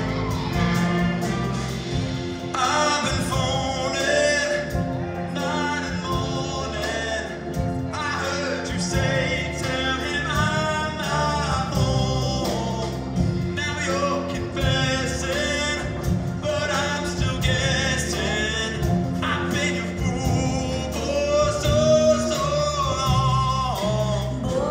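Show choir singing with instrumental accompaniment.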